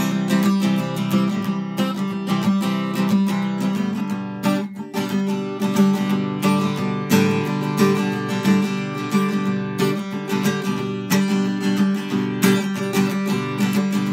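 Acoustic guitar strummed in a steady rhythm, chords ringing on between strokes.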